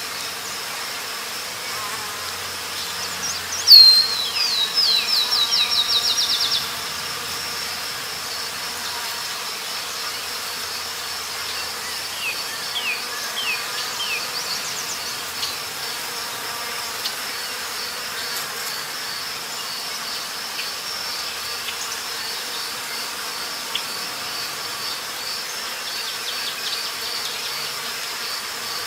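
Forest ambience: a steady, high, pulsing insect chorus. About four seconds in a bird gives a loud, rapid series of falling notes lasting a couple of seconds, and a few fainter falling bird notes follow around twelve seconds in.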